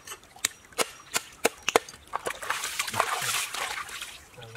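Knife chopping through fish onto a cutting board, a sharp knock about three times a second for the first two seconds. Then water splashing and sloshing as hands work the fish pieces in the stream.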